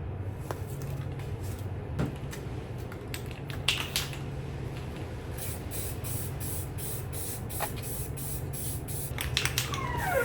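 Filler primer being sprayed onto a car's engine bay: a hiss in many short, repeated passes over a steady low hum.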